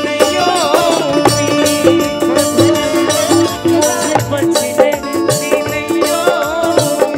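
Bhojpuri folk stage music played without words: a sustained melody over a steady, evenly repeating percussion beat.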